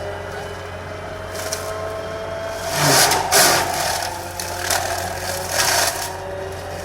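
Excavator engine running steadily while its Seppi mulcher head shreds oil palm wood, with loud crunching bursts about three seconds in and again near six seconds.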